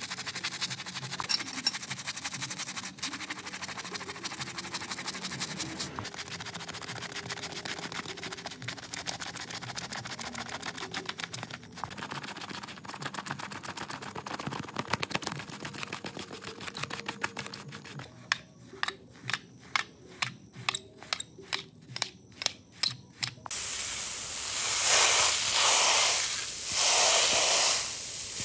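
Wet, soapy rug being scrubbed with rapid, dense brush strokes, then slower strokes at about two a second for several seconds. Near the end a water spray hits the rug with a loud hiss that swells and fades.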